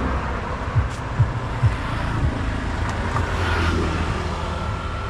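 A motor vehicle's engine running with a steady low rumble, with three short knocks in the first two seconds.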